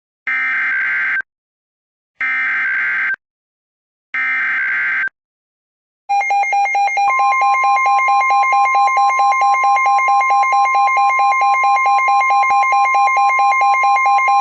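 Emergency Alert System SAME header: three identical one-second bursts of buzzy digital data tones, about two seconds apart. After them comes the loud, wavering EAS attention tone, with a second steady tone joining about a second later.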